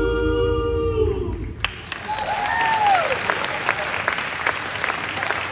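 A gospel vocal quartet holds its final chord, which ends about a second in. Audience applause breaks out right after, with a whoop that rises and falls in pitch.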